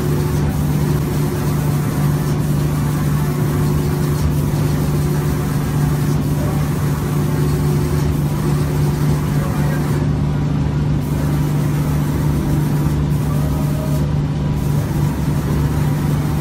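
Five-axis automatic door-spraying machine working in its spray booth: a steady, loud motor hum with a hiss over it. The hiss drops out briefly about ten and fourteen seconds in.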